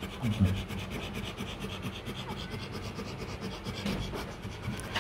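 Rubbing and rustling of dog fur close to the microphone as newborn Rottweiler puppies squirm and nurse against their mother, with a few soft low grunts about half a second in.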